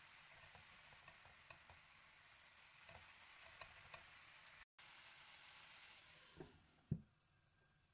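Food frying faintly in a pan: a steady sizzle with scattered small crackles. It drops out for an instant about halfway and fades away near the end, and a single sharp knock comes just before the end.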